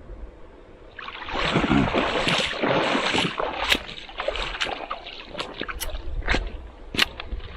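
Water splashing and sloshing, starting about a second in, with many irregular sharp clicks and knocks mixed through it.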